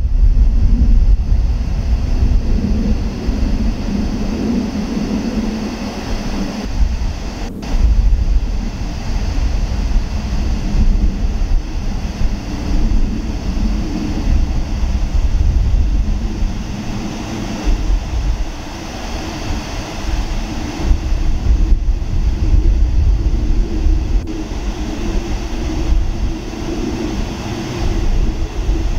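Twin-engine jet airliner on final approach for landing, its engines making a continuous rumble that grows as it nears the runway, mixed with heavy wind buffeting the microphone.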